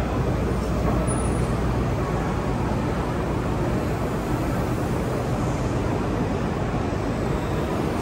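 Steady din of a busy exhibition hall: a dense low rumble of crowd and machinery with no single sound standing out.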